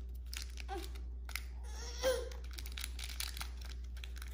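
Plastic candy wrapper crinkling and crackling in small bursts as a child picks it open, with a toddler's brief babbling sounds twice.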